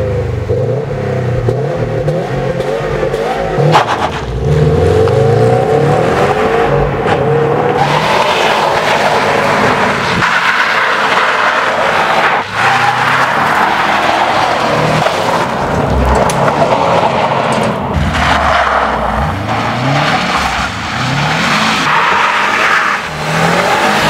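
Subaru WRX STI's turbocharged flat-four boxer engine revving hard, the pitch climbing and dropping again and again through the gears as the car is drifted on gravel, with tyres scrabbling and stones spraying.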